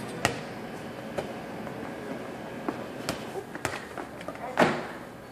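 Rubber playground ball bouncing on a hard floor: several separate sharp bounces at uneven intervals, the loudest near the end.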